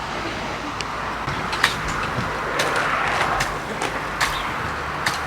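Grass and weeds being pulled out of a vegetable bed by hand: a steady rustling with scattered sharp snaps and clicks as stems and roots tear.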